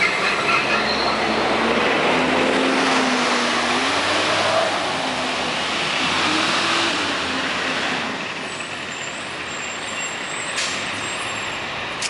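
MCI D4500CL coach's Caterpillar C-13 diesel running with its radiator cooling fans on hard, a loud steady rushing noise that eases off about eight seconds in. A couple of sharp clicks come near the end.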